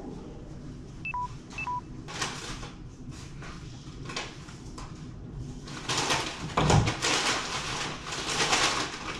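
Two short electronic beeps about a second apart, then handling noises from someone rummaging through cupboards: knocks, rustling and a heavier thud, busier in the last few seconds.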